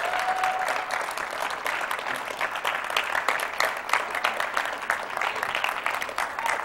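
Audience applauding with dense, steady hand claps.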